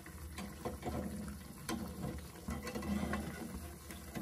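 Besan-coated bread pakora deep-frying in oil in a steel kadhai, with a faint sizzle. Scattered clicks come from a metal slotted spoon knocking against the pan as the pakora is turned.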